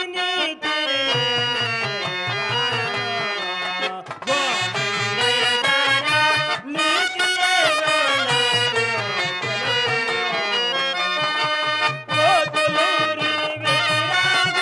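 Instrumental music with a reedy melody, the pitch gliding and shifting, over a steady low beat.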